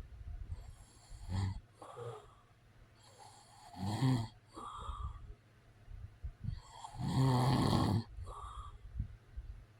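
A man snoring: two loud snores, a shorter one about four seconds in and a longer one of about a second starting about seven seconds in, with softer breathing sounds between them.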